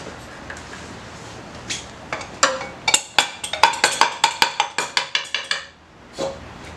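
Honda CT90 cylinder being tapped and worked down over the piston and studs: a quick series of sharp, ringing metallic taps, about four a second, starting about two seconds in and lasting around three and a half seconds.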